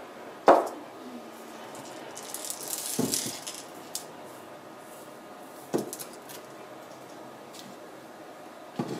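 Clear plastic water-filter cartridges and housings handled and set down on a plastic-sheeted table: a few separate knocks, the loudest about half a second in, and a short rattle of loose filter media granules inside a cartridge around two to three seconds in.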